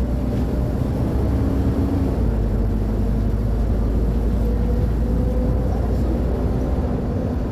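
Mercedes-Benz O500UA articulated bus's diesel engine running steadily, a continuous low rumble with faint tones that shift a little in pitch.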